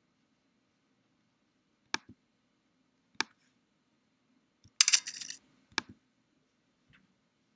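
Computer mouse button clicks: sharp single clicks about two and three seconds in, a short rattle of several quick clicks about five seconds in that is the loudest sound, then another click. A faint low hum runs underneath.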